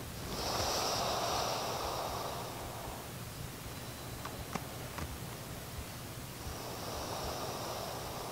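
A person breathing slowly and deeply while lying face down: one long breath starting just after the beginning and another near the end, close to the microphone.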